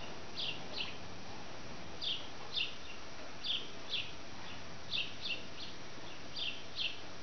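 A small bird chirping in a regular pattern: two short falling chirps about every second and a half, over a steady low hiss.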